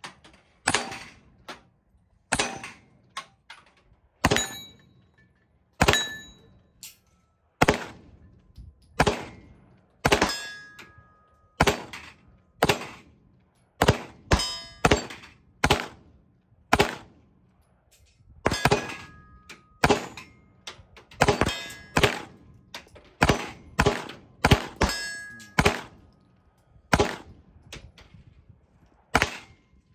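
Steady string of about two dozen gunshots, roughly one a second, fired at steel targets. Several shots are followed by the short ringing clang of a hit steel plate.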